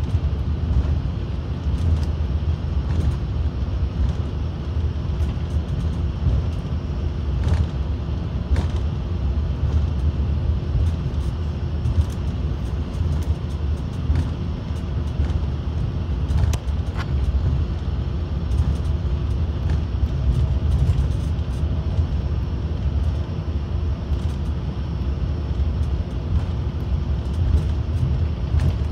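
Cabin noise inside an Embraer ERJ-145 regional jet taxiing: a steady low rumble from its rear-mounted turbofan engines and the wheels rolling on the taxiway, with a few faint clicks.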